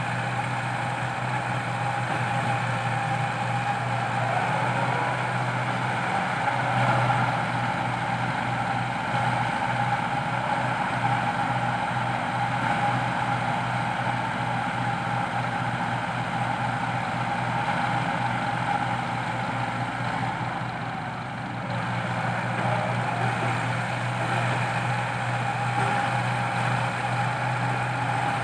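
Komatsu crawler excavator's diesel engine running steadily while it digs and loads soil into a dump truck: a continuous low hum with a steady higher whine above it, briefly louder about seven seconds in and dipping a little near the twenty-second mark.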